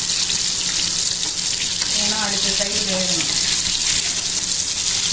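Fish pieces shallow-frying in hot oil in a pan, a loud, steady sizzle, while the pieces are being turned over.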